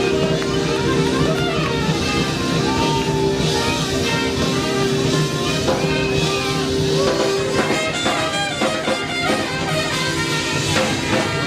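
Live soul and R&B cover band playing, with electric guitar and drum kit over a long held note.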